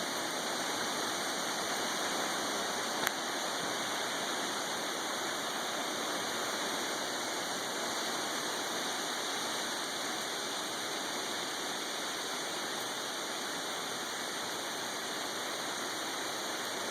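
Steady water noise, an even hiss without a break, with one sharp click about three seconds in.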